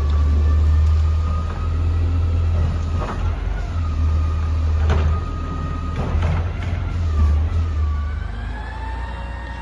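Front-loader garbage truck with a Curotto Can arm, its diesel running with a deep rumble and a wavering hydraulic whine that rises and falls as the arm works. Several short metallic clunks come through it.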